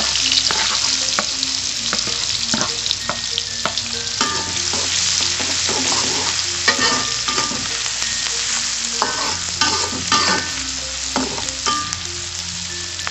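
Sliced shallots and garlic frying in hot oil in an aluminium wok, sizzling steadily, while a metal spatula stirs them and clicks and scrapes against the pan.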